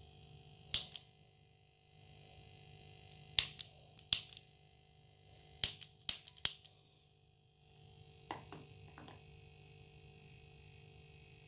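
Sharp clicks and knocks from a homemade aluminium delay pedal being handled with its jack plugs in. There are about seven loud clicks in the first seven seconds and softer ones around eight to nine seconds in, over a faint steady hum.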